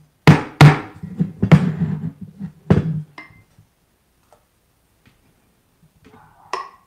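Four sharp knocks in about three seconds, a stainless steel milk pitcher of steamed milk knocked against the wooden counter, then near quiet while the milk is poured into the cup, and a lighter tap near the end.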